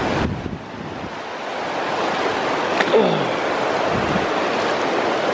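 Shallow river water running over stones as a steady rush. It dips just after the start and builds back up, with a short click about three seconds in.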